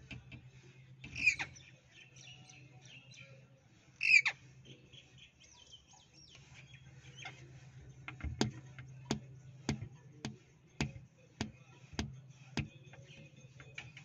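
Rose-ringed parakeet giving two short, shrill calls, one about a second in and one about four seconds in, with softer chatter between them. From about eight seconds in, a run of about eight sharp clicks follows, evenly spaced at a little under two a second.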